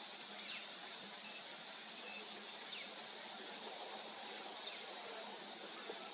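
A steady, high-pitched chorus of insects, with a bird giving short falling calls about every two seconds.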